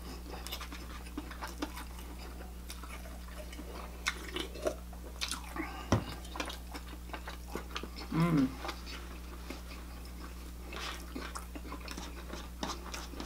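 Close-up mouth sounds of people eating: chewing, with scattered small wet clicks and smacks. There is a single knock on the table about six seconds in and a brief hum of a voice a little after eight seconds.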